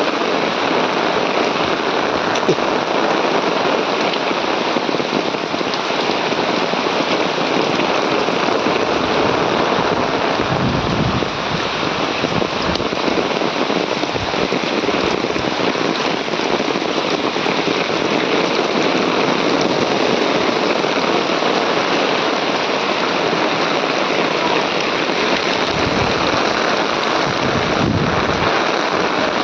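Heavy rain pouring down steadily in a dense crackling hiss, with a couple of brief low rumbles.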